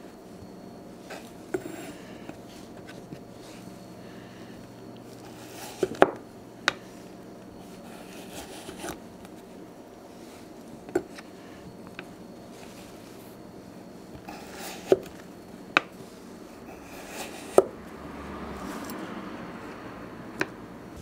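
Japanese kitchen knife slicing carrot pieces on a wooden cutting board: about ten sharp knocks at irregular intervals as the blade meets the board, with a soft brushing sound shortly before the end.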